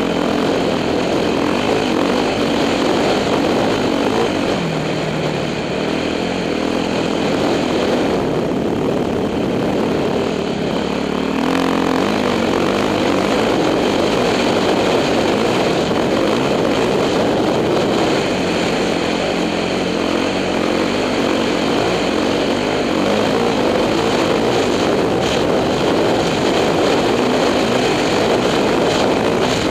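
A 2006 Yamaha YZ450F's single-cylinder four-stroke engine running under way on a dirt trail, loud and steady.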